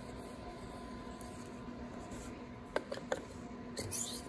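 Light handling sounds of a lubed Ferrea titanium valve being slid into its guide in an aluminium cylinder head: two small sharp clicks about a third of a second apart, then a brief patter of faint scrapes and clicks near the end. A steady background hum runs underneath.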